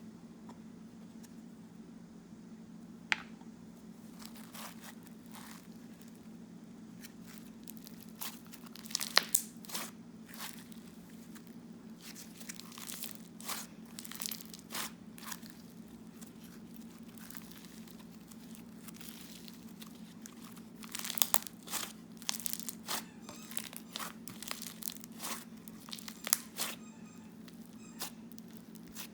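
Crunchy foam slime packed with microfoam and foam beads being squeezed and worked by hand, giving irregular crackling and popping in clusters with short pauses between. A steady low hum sits underneath.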